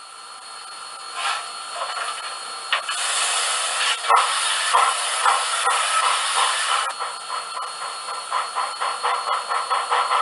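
Steam locomotive sounds from a TCS WOW101 DCC sound decoder played through a small model-railway speaker: steam hiss building up, then chuffs starting about four seconds in and quickening. The sound is thin, with no bass.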